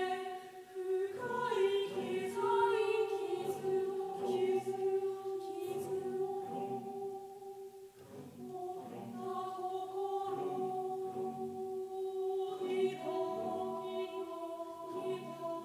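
Unaccompanied mixed choir singing slow, sustained chords, the voices briefly dropping away about eight seconds in before the next phrase; a new chord enters near the end.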